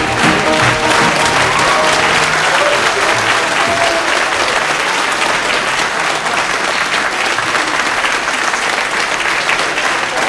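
Studio audience applauding at the end of a song, with the band's last notes fading out in the first few seconds.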